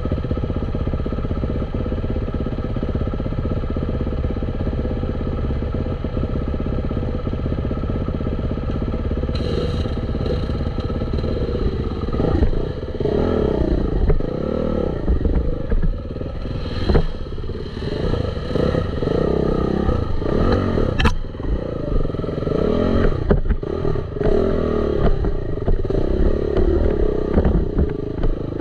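Dirt bike engine running at a steady speed, then revving up and down over and over from about twelve seconds in, with rattling and knocks along the way and one sharp knock late on.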